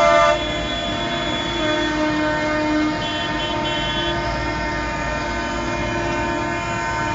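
Tractors in a passing convoy: a loud horn chord cuts off just after the start, then steady diesel engine rumble with further horn tones, a held one a couple of seconds in, short high beeps, and another held tone near the end.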